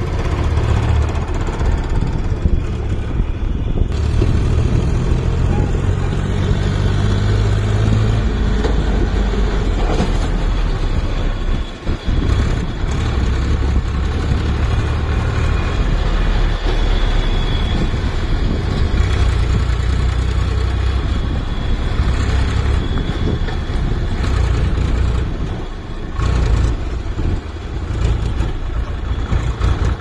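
Powertrac 434 DS tractor's three-cylinder diesel engine running steadily while pulling a trolley loaded with sand, with a deep, even engine note. The level dips briefly twice.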